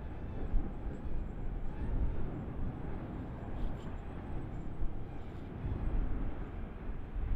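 Fagradalsfjall volcano erupting: a deep, irregular rumbling roar that swells and eases every second or so.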